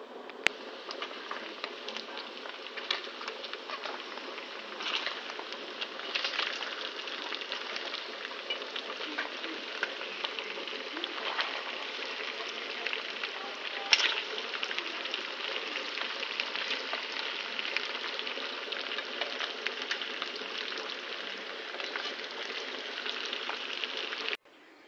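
Shredded vegetables and meat sizzling and crackling in hot oil in a pan as they are stir-fried with metal tongs. A few louder clicks stand out, and the sizzling cuts off suddenly near the end.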